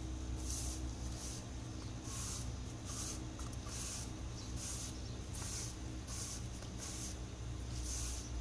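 Broom sweeping a tiled floor: short brushing swishes about every 0.7 seconds, over a steady low hum.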